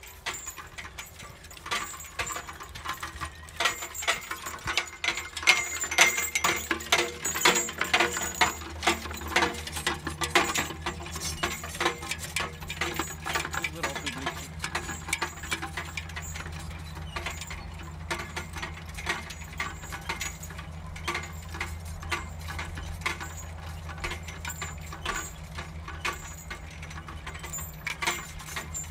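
Horse-drawn sickle-bar mower, a 1940s Arvika Verken Viking BV-I, clattering as it mows: a rapid, dense chatter of the reciprocating cutter-bar knife and its gearing, louder in the first third and steadier after. Under it runs a steady low rumble of road traffic.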